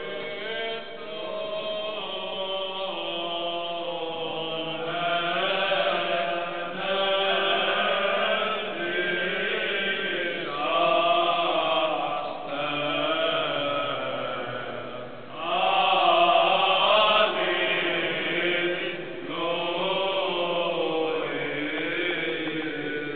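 Liturgical chanting in a church, sung in sustained phrases that rise and fall, with short breaks between them.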